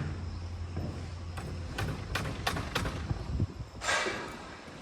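Construction site sounds: a low steady hum that stops about three and a half seconds in, with scattered light knocks and a brief hiss near the end.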